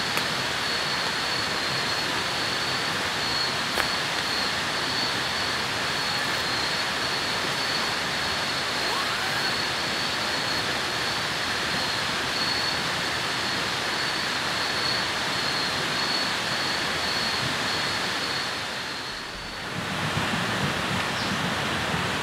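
Steady rush of water with a thin, high, steady insect drone over it. Both dip briefly about nineteen seconds in; the water returns without the insect tone.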